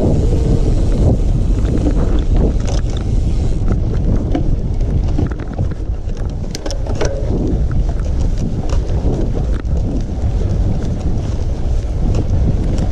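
Wind buffeting the microphone of a camera riding along on a mountain bike, a loud, steady low rumble, with scattered short rattles and knocks from the bike over rough ground.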